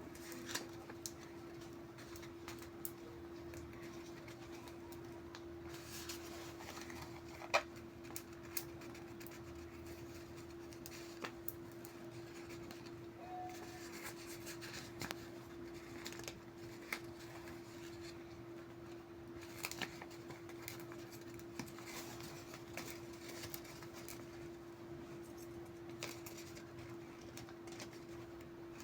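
Faint scratching, rubbing and small clicks of hands working a vinyl sticker and its transfer tape on a surface, scattered irregularly over a steady low hum.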